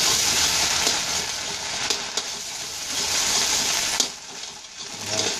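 Garlic and salted egg frying in hot oil, a steady hiss of sizzling as it is stirred, with a few sharp clicks of the utensil against the pan. The sizzle quietens a little after about four seconds.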